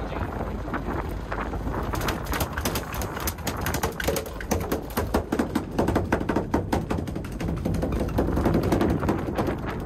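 Freshly landed albacore tuna drumming its tail rapidly against the deck and landing net, a dense run of fast irregular taps that starts about two seconds in, over wind noise on the microphone.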